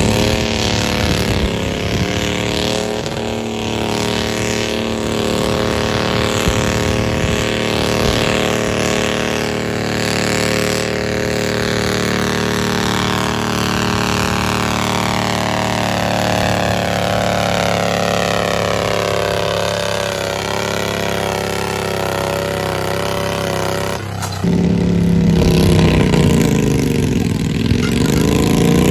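Garden tractor engine running hard at full throttle during a tractor pull. Its pitch falls steadily over about ten seconds in the middle. About 24 s in the sound changes suddenly to a deeper, louder engine note that dips briefly in pitch and comes back up.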